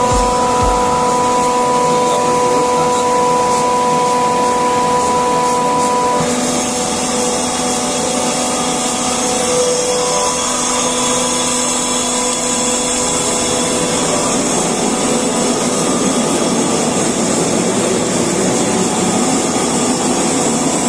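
Rotary screw air compressor running loaded: a loud, steady hum with steady whining tones. About six seconds in the whine fades and a brighter hiss takes over.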